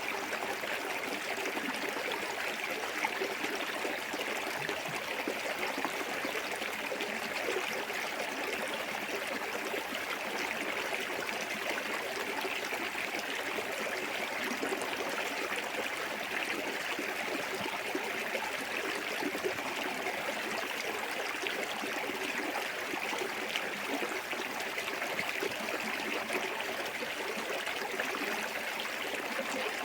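Small waterfall and clear forest stream running: a steady rush and trickle of water.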